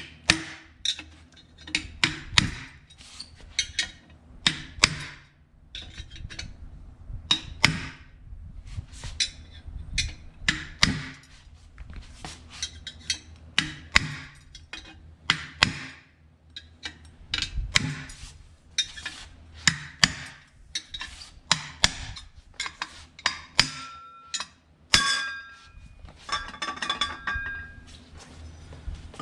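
Hammer blows on a steel punch, driving the end plate off a ceiling fan motor held in a vise: repeated sharp metal-on-metal strikes, irregularly spaced, about one or two a second. A few lighter, ringing metallic clinks come near the end.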